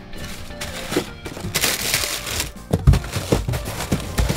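Cardboard boxes and plastic-wrapped ice cream bars rustling and crinkling as hands rummage through a chest freezer, with a couple of dull knocks, over background music.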